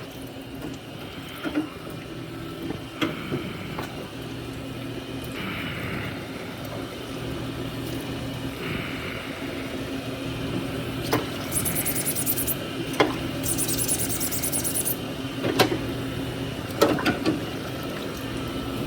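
Metal lathe running steadily while it machines a part, with scattered clicks and two spells of high hiss about 11 and 14 seconds in.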